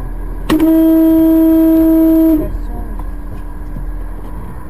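Car horn sounding one long steady blast of about two seconds, starting about half a second in.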